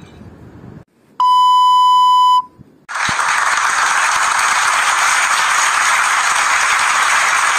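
A single steady electronic beep lasting about a second, then, after a short gap, a loud steady hiss of noise like static that runs on to the end.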